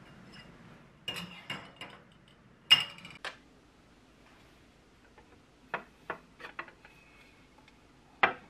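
Metal kitchenware being handled: a few sharp clinks and clacks about a second in, the loudest near three seconds, then a run of lighter taps around six seconds and another loud clack near the end.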